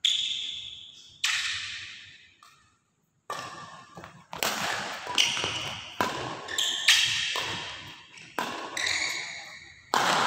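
Badminton rackets striking a shuttlecock in a doubles rally, sharp hits about once a second, each ringing out in the hall's echo, with a brief pause about three seconds in.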